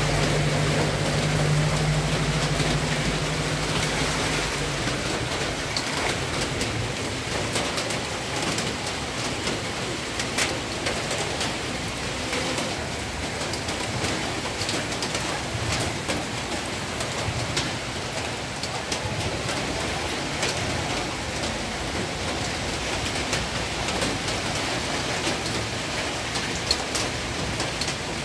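Heavy rain falling steadily, with many close drops ticking. For the first five seconds a low engine hum lies under it, then stops.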